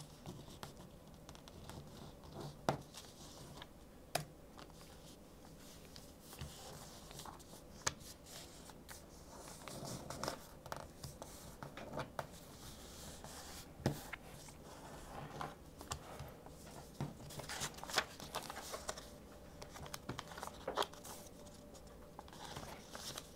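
A sheet of paper being folded and creased by hand on a wooden tabletop. Faint rustling and sliding, with scattered soft taps and scrapes as the folds are pressed down.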